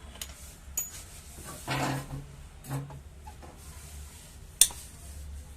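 Hand tools working on the scooter's clutch-cover bolts: scattered metallic clicks and two short rattles, with one sharp click near the end as the loudest sound.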